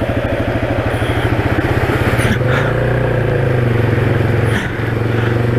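Single-cylinder Yamaha XT dual-sport motorcycle engine running steadily at low trail speed, its rapid regular firing pulse close to the microphone, with a couple of brief rushing bursts about two and a half and four and a half seconds in.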